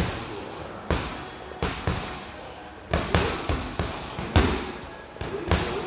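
Boxing gloves punching a hanging heavy bag: about a dozen thuds in irregular combinations, some landing in quick pairs.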